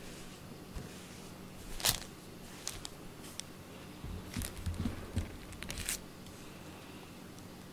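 Scattered light clicks and rustles, with a cluster of soft low thumps about four to six seconds in, over a faint steady low hum.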